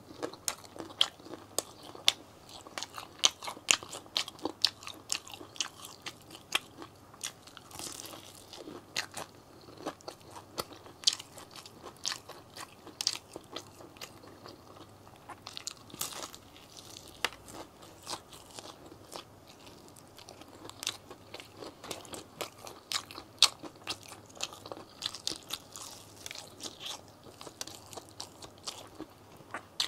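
KFC fried chicken leg being bitten and chewed close to the microphone: a run of irregular sharp crunches of the crispy breaded skin, with chewing between bites.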